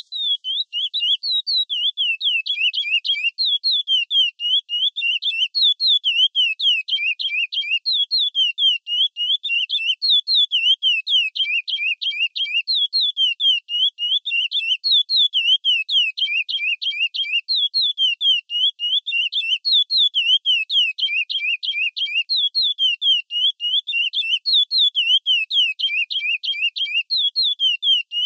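Curió (chestnut-bellied seed finch) singing the 'praia clássico' song type: a non-stop run of quick, high whistled notes sliding up and down, in phrases that repeat over and over.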